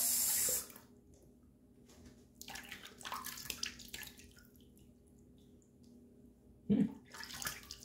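Bathroom sink tap running and shut off about half a second in, then scattered splashing and dripping of water in the sink, coming and going twice.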